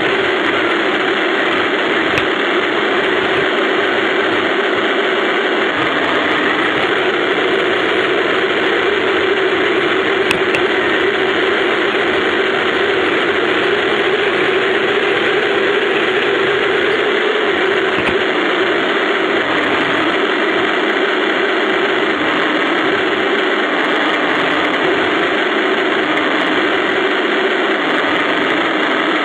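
A 1:16 radio-controlled Tiger I tank model driving, its drive running steadily, heard close up from a camera mounted on the tank. It makes a constant mechanical hum with hiss over it, with no change in level.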